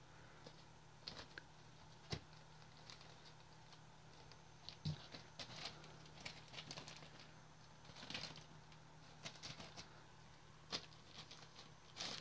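Faint, scattered rustling and light taps of young kittens, three to four weeks old, scampering and pawing on blankets and a plastic bag.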